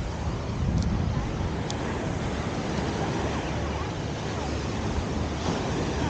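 Wind buffeting the microphone over the steady wash of breaking surf, with faint voices of people on the beach.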